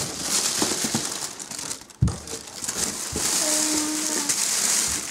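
Plastic wrapping and a cardboard box crinkling and rustling as a plastic-wrapped randoseru school backpack is unpacked, with a single thump about two seconds in.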